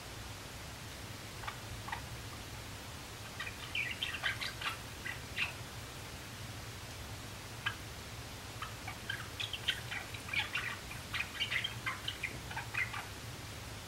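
Young male Java sparrow practising its song: runs of short, clicky chirping notes, a brief bout about four seconds in and a longer one from about eight seconds to near the end.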